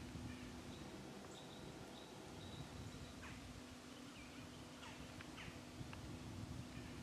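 Quiet woodland ambience: a faint steady low hum under an even background hiss, with several short, faint bird chirps.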